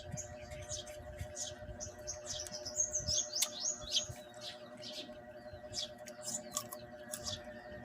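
Small birds chirping repeatedly, with a quick run of chirps about three seconds in, over a steady hum.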